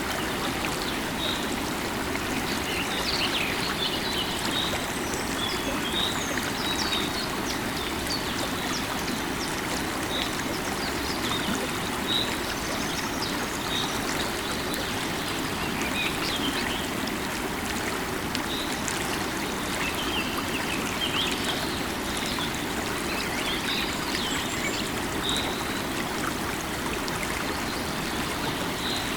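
River water running and babbling steadily, with small birds chirping in short calls here and there.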